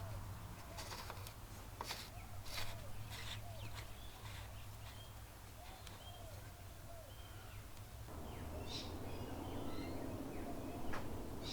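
Birds chirping and calling, with short rising and falling chirps throughout and more of them in the second half. There are a few sharp clicks and knocks in the first few seconds, over a steady low hum.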